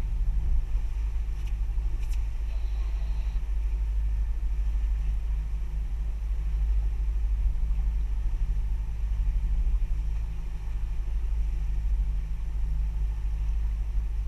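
Sportfishing boat's engine running steadily under way, a low even drone.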